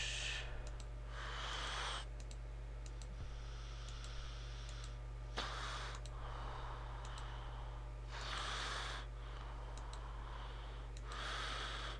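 Scattered computer mouse clicks over a steady low electrical hum, with several soft hissing swells about a second long.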